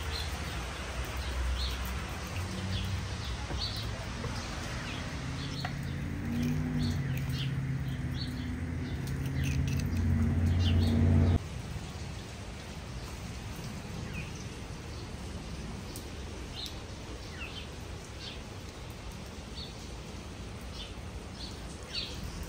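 Small birds chirping, short high calls scattered every second or so. For the first eleven seconds a low drone runs beneath them, growing louder and then cutting off abruptly.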